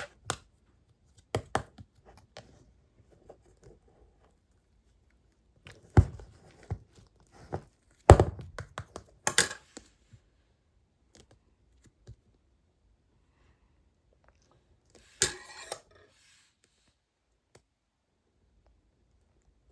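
Slime being handled and pressed, giving scattered sharp clicks and short crackling squishes with quiet pauses between them.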